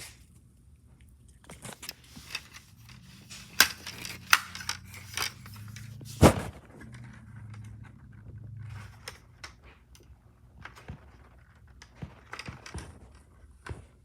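Hands handling plastic DVD cases and discs: scattered clicks, taps and scrapes, with one louder knock about six seconds in.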